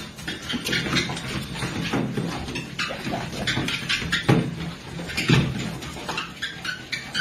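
Dogs' paws thumping and tapping irregularly on a running treadmill belt as they scramble on it, over the treadmill's steady low hum.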